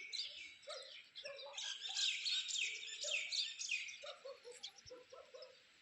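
Small birds chirping: many quick, overlapping chirps that thin out near the end.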